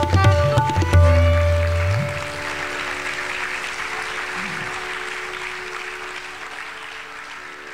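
The closing strokes of a Hindustani classical duet for Indian slide guitar and tabla: a few sharp tabla strokes with deep ringing bass and plucked guitar notes in the first two seconds, then the guitar strings ringing on under applause that slowly fades away.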